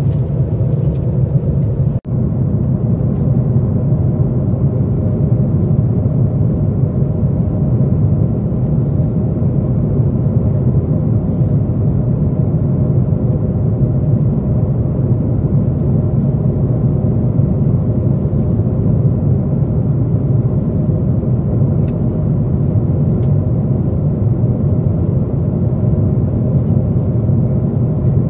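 Steady low rumble of a jet airliner's cabin in cruise flight, engine and airflow noise, with a momentary dropout about two seconds in.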